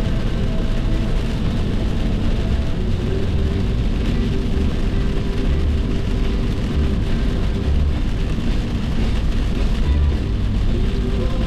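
Car driving at highway speed: steady road and engine noise with a deep rumble.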